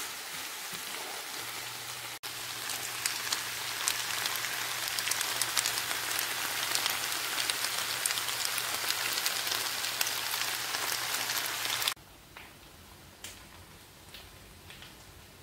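Stir-fry noodles, chicken and vegetables sizzling and crackling in a hot frying pan. The sizzle cuts off abruptly about twelve seconds in, leaving a much quieter background with a few faint ticks.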